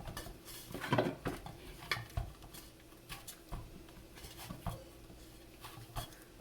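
Kitchen utensils and dishes clinking and knocking as they are handled: a few scattered clinks, the loudest about a second in.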